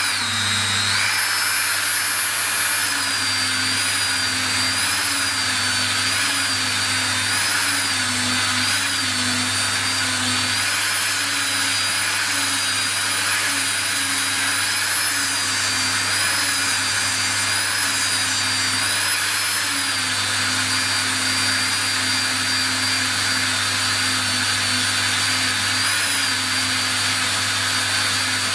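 Dremel rotary tool on a flexible shaft running at speed with a polishing wheel and compound on jumbo guitar frets: a loud, steady high whine that wavers slightly in pitch as the wheel is worked along the frets.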